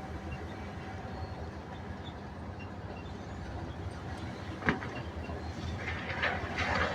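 Excavator engine running steadily, with a sharp knock about two-thirds of the way in and a burst of metallic clanking and scraping near the end.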